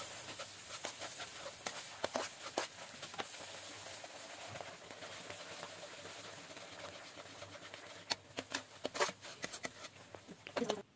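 A spatula stirring and scraping a thick jaggery-and-spice paste cooking in ghee in an aluminium kadhai, over a faint, steady frying sizzle. It makes scattered scrapes and taps against the pan, with a quick run of sharper clicks about eight seconds in and again just before the end.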